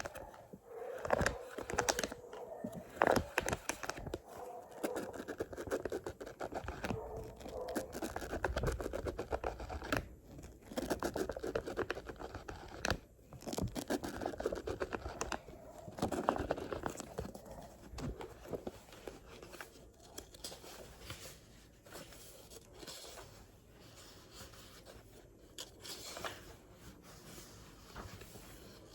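A book being scratched and rustled: irregular scratchy, papery strokes with sharp clicks among them, quieter for the last several seconds.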